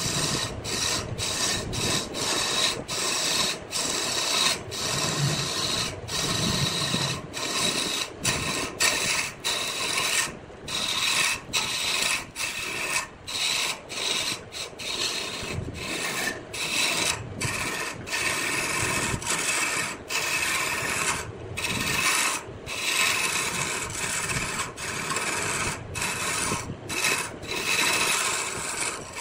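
Wood lathe running while a tool or abrasive works the spinning wood: a continuous rough scraping, broken by many brief drop-outs to near silence.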